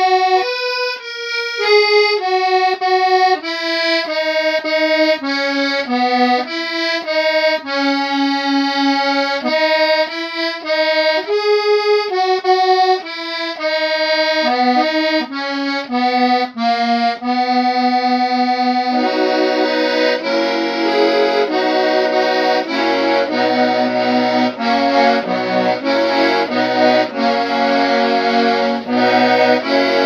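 Squeeze box (accordion) playing a tune: a single melody line of held notes for most of the time, with bass notes and chords coming in under the melody about two-thirds of the way through.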